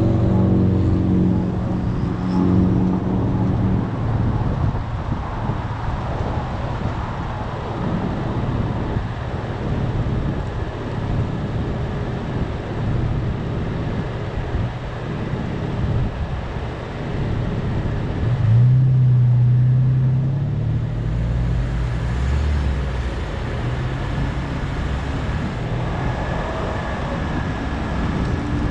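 Car engine running with road and traffic noise. A deeper, louder engine hum comes in suddenly about two-thirds of the way through.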